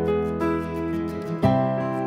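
Soft instrumental background music with held notes; the chord changes about one and a half seconds in.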